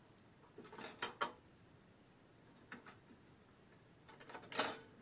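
Small metal parts of a clock movement clicking and clinking as they are handled during disassembly: a few separate light clicks, then a louder brief clatter near the end.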